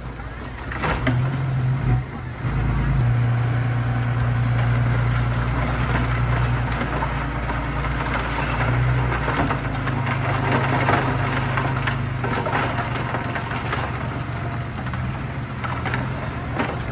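Heavy earthmoving machine's diesel engine running as a steady low drone. It picks up strongly about a second in and eases off near the end, with a few sharp knocks.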